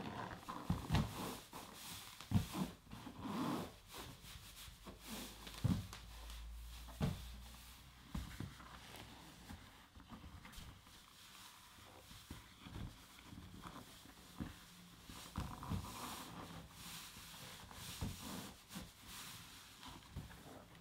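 A large latex balloon being handled: irregular rubbing and squeaking of the rubber against hands and fur, with soft knocks.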